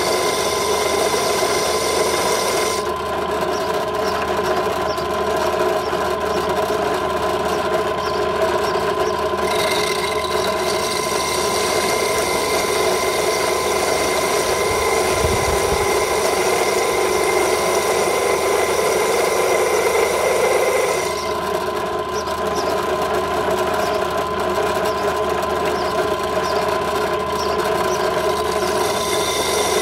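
Electric drill running steadily with a whine, its bit grinding into a glass bottle held under water. The high grinding hiss thins out for a few seconds at a time and comes back.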